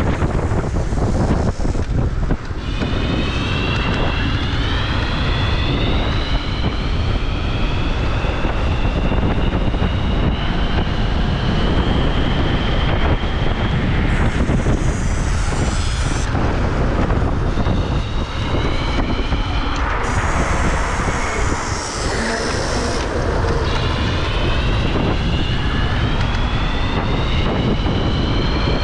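Electric scooter motor whining at speed, its pitch climbing steadily as it accelerates, in three long pulls. Heavy wind buffets the microphone throughout.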